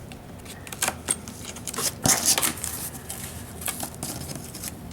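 Cardboard being handled and worked with a hobby knife: scattered taps and clicks, with a louder scraping rustle about two seconds in.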